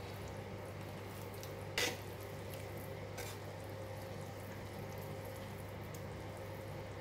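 A stainless ladle stirring water and vegetables in a stainless stock pot: faint swishing of liquid, with one sharp clink of metal about two seconds in and a lighter one a second later, over a steady low hum.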